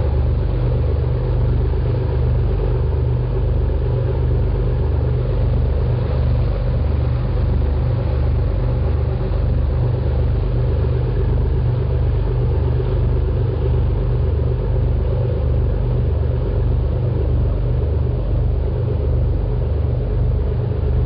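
A boat's engine running steadily: an even, low pulsing rumble.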